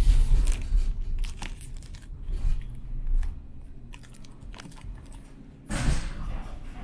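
Tram rolling slowly along the track. Its low rumble fades over the first couple of seconds, leaving scattered creaks and clicks, and a short burst of hiss comes about six seconds in.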